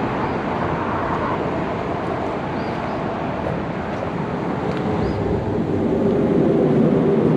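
Steady, really quite loud highway traffic noise. It grows louder toward the end as a vehicle's engine hum builds.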